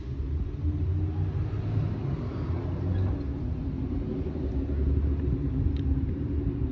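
Loud car exhaust rumbling steadily, a low engine drone with a faint tick a little before the end.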